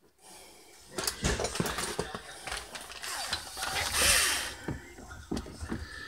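Irregular clicks, knocks and scrapes of plastic refrigerator interior panels and parts being handled and fitted, with a louder rustle about four seconds in.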